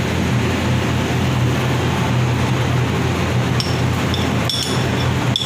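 Onion, ginger, garlic and pandan leaves sizzling steadily in hot chicken-fat oil, over a steady low hum. A few light clinks near the end.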